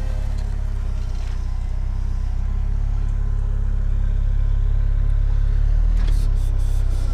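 A vehicle driving on the road: a steady low rumble of engine and road noise, growing slightly louder.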